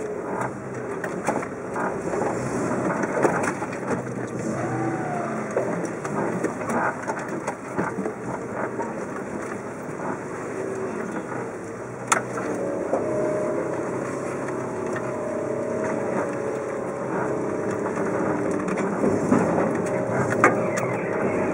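A four-wheel drive's engine running at low revs, heard from inside the cabin as the vehicle crawls over creek-bed rock, with the crunch and knock of tyres and suspension on stone. There is one sharp knock about twelve seconds in.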